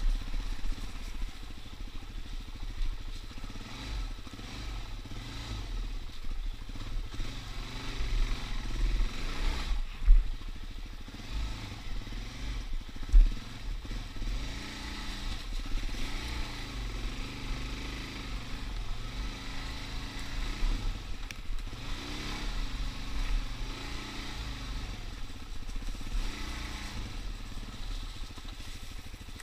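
Suzuki DR-Z dirt bike's single-cylinder four-stroke engine running at low, varying revs on the move, with two sharp knocks about ten and thirteen seconds in.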